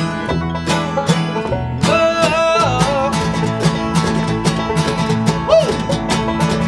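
Acoustic bluegrass band playing an instrumental break: banjo picking and guitar on a steady beat, with a sliding, wavering lead line about two seconds in.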